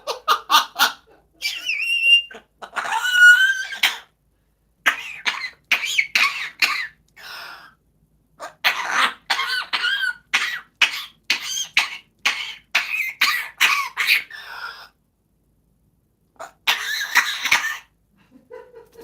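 A parrot mimicking a person's choking cough: a long run of short coughs, with a few high gliding squeaks about two to four seconds in. After a pause near the end comes one last burst of coughs.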